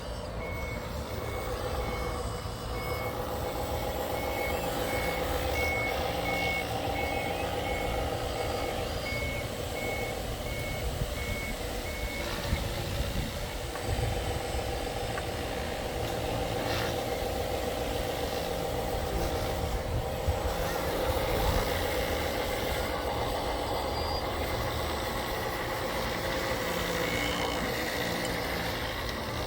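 Radio-controlled construction machine running steadily, with a reversing beeper sounding regularly, a bit under twice a second, for about the first twelve seconds; a few light knocks later on.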